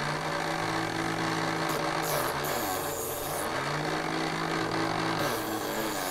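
Battery-powered Kyocera electric ceramic knife sharpener running, its grinding wheel abrading a chipped ceramic blade drawn through the slot. The motor's hum shifts in pitch a couple of times as the blade is pressed in and pulled through.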